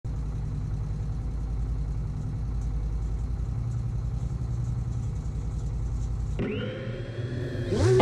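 A vehicle engine idling with a low, steady rumble that cuts off about six seconds in. A thin rising tone follows, and music starts near the end.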